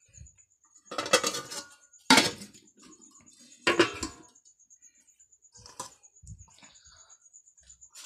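Stainless steel plates, bowls and a pot lid clattering and clinking as they are handled. There are three loud bursts of clatter, about one, two and four seconds in, and a few lighter knocks near the end.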